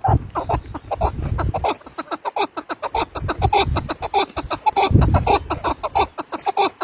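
Caged chukar partridge calling: a fast, rapid series of short chuck notes, many a second.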